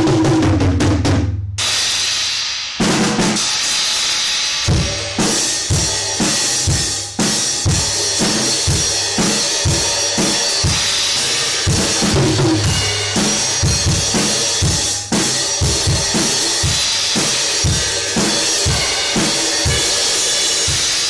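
Drum kit being played: it opens with a quick fill down the toms and a brief pause, then a steady beat on bass drum and snare under ringing cymbals. The cymbals include a new Paiste PSTX 16-inch Swiss Thin Crash being hit for the first time.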